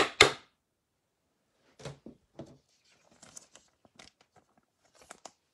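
Football trading cards handled by hand: two sharp snaps right at the start as the cards are flicked, then faint, scattered rustling and sliding of the cards.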